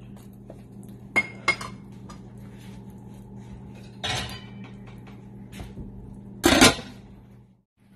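An aluminium pot lid is set down on the cooking pot with a loud metallic clank near the end. Earlier, a couple of light clinks and a brief scrape of utensils against the pot are heard over a faint steady hum.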